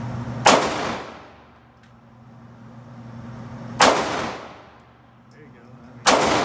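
Three semi-automatic handgun shots, about three seconds apart, each ringing off the concrete walls of an indoor range lane.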